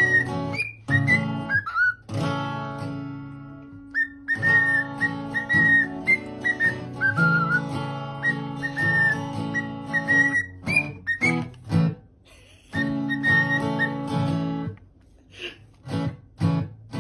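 Background music: acoustic guitar chords under a whistled melody of held, gently bending notes, pausing briefly a few times.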